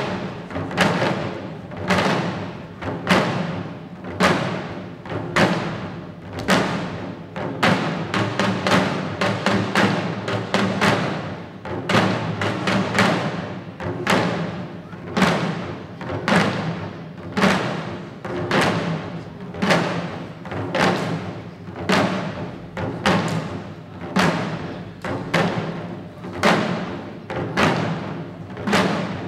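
Shishi odori (deer dance) drums, the taiko strapped to the dancers' chests, beaten by the dancers in a steady, repeating rhythm of sharp strikes with a regular louder accent about once a second.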